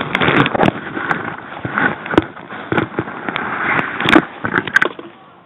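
Airsoft guns firing an irregular string of sharp cracks, a dozen or so shots spaced unevenly, over a loud rustling noise. The shots thin out near the end.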